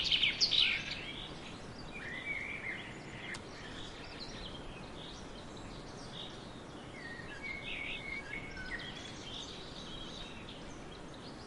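Swallows twittering in short, scattered chirps over a steady hiss of wind through a barley field, with a fast trill fading out in the first second.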